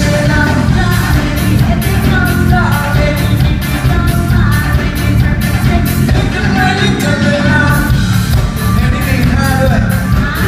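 Live rock band playing a song with a singer, over a steady drum beat and a heavy bass.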